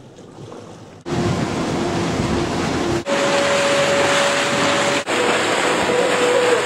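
A motorboat under way: loud wind and water noise with a steady engine hum, starting suddenly about a second in and changing pitch at abrupt cuts about two and four seconds later.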